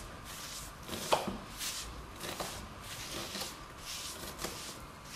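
Kitchen knife chopping onion on a wooden cutting board: irregular knocks of the blade on the board, the sharpest about a second in.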